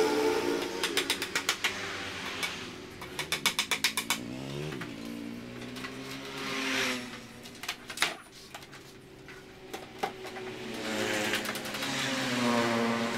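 Short runs of rapid, even clicking, about eight a second, with a motor vehicle engine rising and falling in pitch.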